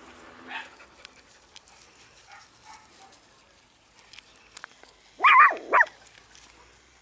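Australian terrier yapping: a quick cluster of short, high-pitched yaps a little after five seconds in, with faint rustling before it.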